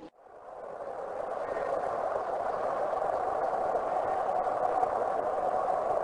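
Train rolling along the rails: a steady rushing noise that fades in over the first two seconds after a sudden cut, then holds level.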